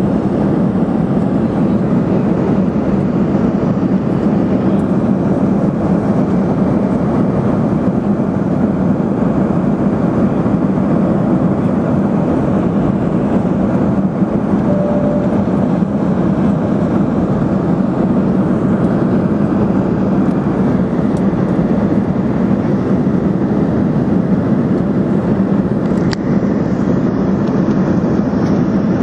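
Airliner cabin noise on the descent to landing: a steady drone of engines and airflow with a strong low hum, heard from inside the cabin.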